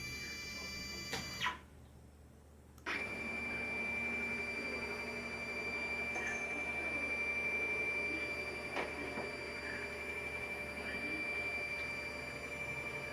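Stepcraft CNC router running with a steady high-pitched whine. It cuts out abruptly about one and a half seconds in and starts again about a second and a half later.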